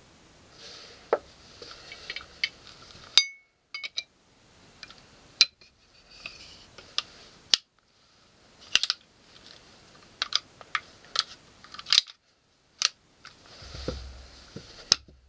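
Irregular sharp metallic clicks and clinks of a Colt Model 1903 Pocket Hammer pistol being taken apart and put back together by hand: the slide, barrel and small pins knocking and sliding against each other. Several brief stretches of dead silence break up the clicks.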